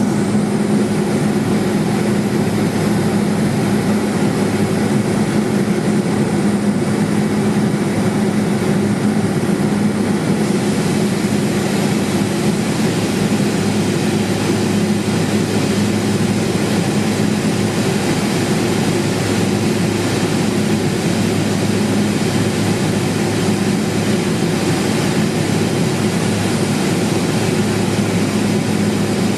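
Cessna 210 Silver Eagle single-engine turboprop in flight: a steady propeller and engine drone over a hiss of rushing air. The hiss grows a little brighter about ten seconds in.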